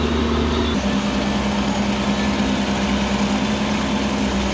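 Diesel engine of a self-loading concrete mixer running steadily while the drum discharges concrete down its chute; the hum drops slightly in pitch about a second in.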